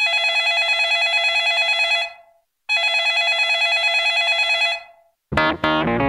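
Electronic telephone ringtone: two warbling rings of about two seconds each with a short pause between, signalling an incoming call. Another sound, music or a voice, starts near the end.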